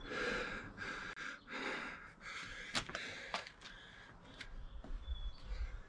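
A man breathing hard in quick, noisy breaths, winded from a set of kettlebell swings, with a few sharp clicks near the middle.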